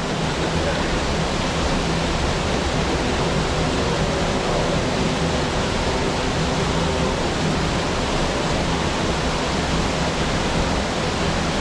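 Steady rushing of a waterfall, an even, unbroken wash of falling water.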